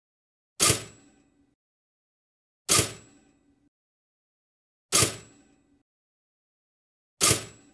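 Four sharp hits about two seconds apart, each ringing briefly before dying away, with dead silence between.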